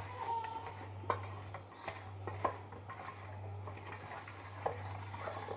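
Light, irregular clicks and taps of food and kitchenware being handled while vegetables are laid into a baking dish, over a steady low electrical hum.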